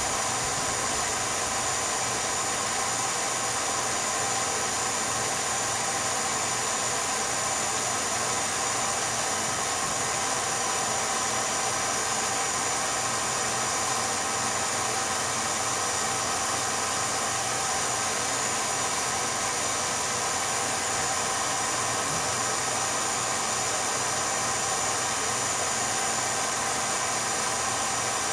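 Steady, unchanging machine running noise with hiss and a few held tones, the sound of an 8mm film projector running as the silent home movie is transferred.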